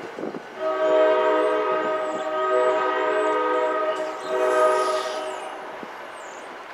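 NJ Transit passenger train's multi-chime air horn sounding a long blast of about three and a half seconds, then a shorter blast after a brief break, as a grade-crossing warning.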